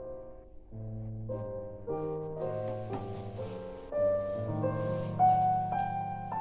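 Piano music playing a slow run of held, overlapping notes and chords.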